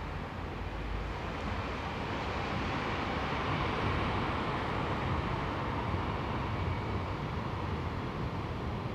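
Steady distant hum of town traffic, swelling a little in the middle and easing off again.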